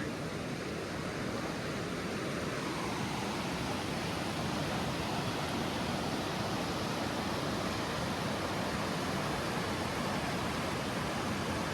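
Creek water rushing: a steady, even noise without breaks.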